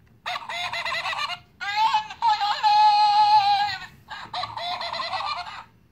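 Squeeze-activated Halloween plush toy's sound chip playing a squeaky, high-pitched electronic voice in three stretches, the middle one holding a long steady note.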